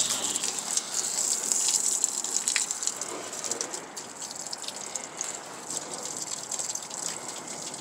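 Garden hose spraying water onto the rusted hood hinges and springs of an old truck: a steady hiss with water splashing and spattering on the sheet metal. The water is meant to loosen a hood that is rusted stuck.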